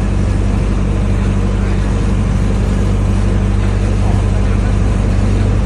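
Boat engine running steadily under the deck, a loud, even low drone with no change in pace.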